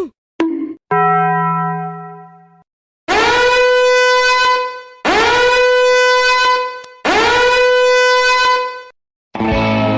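A string of short meme sound effects: a quick falling glide, a brief low tone and a fading low hum, then three long horn blasts about two seconds each, every blast scooping up in pitch as it starts. Music with a guitar starts near the end.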